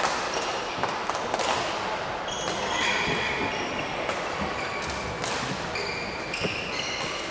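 Badminton hall sounds: sports shoes squeaking briefly and repeatedly on the court floor, with scattered sharp taps and knocks, echoing in a large hall.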